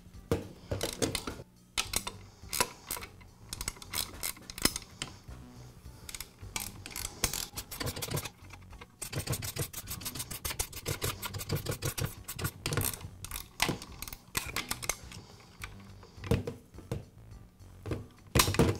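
Metal clicks, taps and light clatter of hand work on a Skil Skilsaw's metal base with a hand tool, with a fast run of clicks around the middle. Faint background music underneath.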